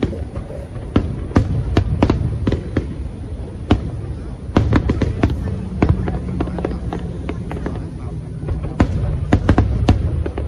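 Fireworks bursting in an irregular string of sharp cracks and bangs over a continuous low rumble, heard through an old phone's microphone. The cracks come thickest about halfway through and again near the end.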